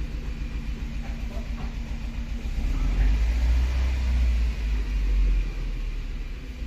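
Nissan Tiida driving, its engine and road noise heard as a low rumble inside the cabin, growing louder for a couple of seconds in the middle.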